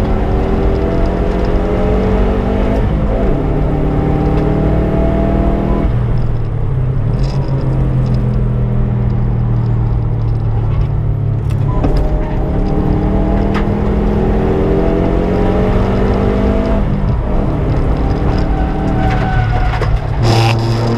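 Subaru Impreza's turbocharged flat-four engine pulling hard on track, its pitch climbing through the revs and dropping back several times at gear changes and lifts. There is a short loud burst near the end.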